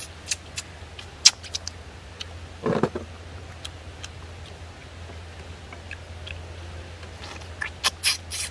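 Close-up eating sounds: scattered wet smacks and sucking clicks as meat is sucked and chewed off a pork neck bone from the stew, with a short louder sound about three seconds in and a burst of smacks near the end. A steady low hum runs underneath.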